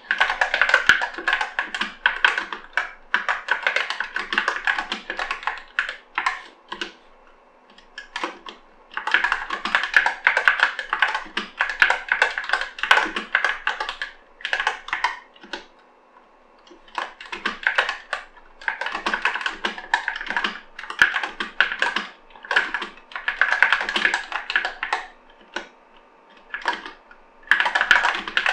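Typing on an Epomaker SK64 mechanical keyboard with Gateron Optical Black linear switches and PBT keycaps: fast runs of key clacks, broken by brief pauses about 7, 16 and 25 seconds in.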